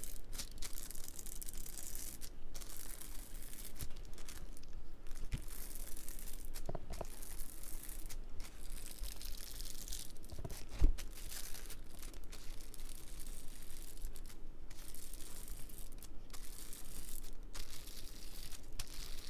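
A palm rubbing and pressing over a diamond painting canvas, pushing the resin drills into the adhesive: repeated scratchy rustling strokes, with a single thump about eleven seconds in.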